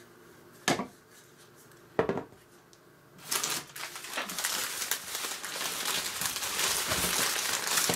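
Two short knocks, then from about three seconds in, newspaper crinkling and rustling steadily as a wrapped item is unwrapped.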